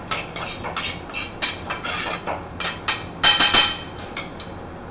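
Metal spoon scraping and clinking against a stainless steel frying pan as clams and cherry tomatoes are spooned out onto a plate. It is a quick, irregular run of scrapes and clinks; the loudest cluster, about three and a half seconds in, rings briefly, and the clatter stops shortly before the end.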